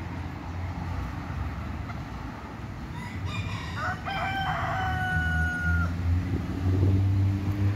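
A rooster crows once, starting about three seconds in, a few short notes followed by one long held note. Underneath runs a steady low rumble, with an engine note rising near the end.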